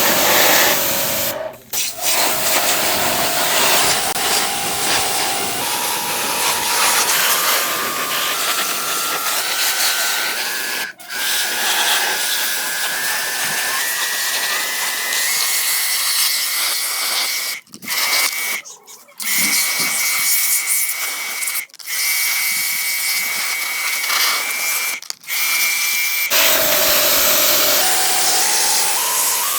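Washing machine motor spinning the drum up over loud rushing noise, its whine climbing in pitch in small steps. It cuts out briefly several times, then starts low again near the end and climbs once more.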